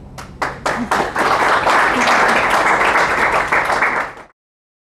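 Audience applauding: a few scattered claps that swell into full, steady applause about a second in, then cut off suddenly near the end.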